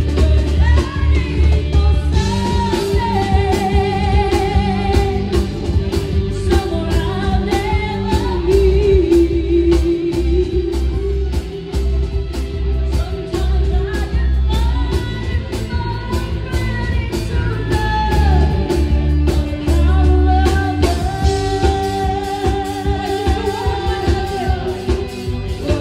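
Live band playing a pop ballad through a PA system, with a female voice singing the melody over electric bass and a steady drum beat.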